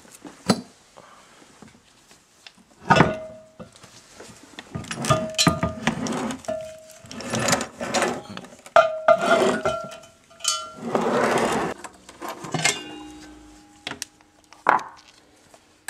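Steel gears and synchro rings of a dismantled manual transmission clinking and knocking as the gear shaft is handled: a string of irregular metal knocks, several leaving a brief ringing tone, and a scraping rattle of about a second a little past the middle.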